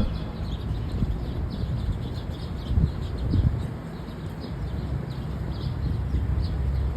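Small birds chirping over and over, over a steady low outdoor rumble.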